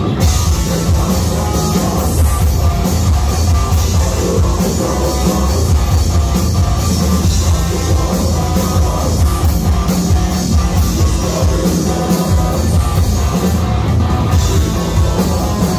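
Heavy metal band playing live: distorted electric guitar and drum kit with a singer's vocals, loud and continuous.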